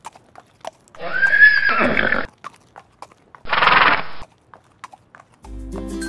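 Horse whinnying: a call of about a second with a high pitch that falls away, then a shorter, noisier call about a second later, among scattered hoof clops. Music starts near the end.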